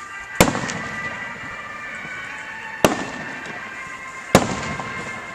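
Aerial fireworks bursting: three sharp bangs, each followed by a rolling echo, under a steady high whine of several tones.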